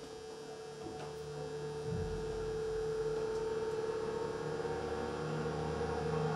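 A sustained, droning tone with several steady pitches, swelling slowly in loudness: the opening of the routine's music over the stage sound system.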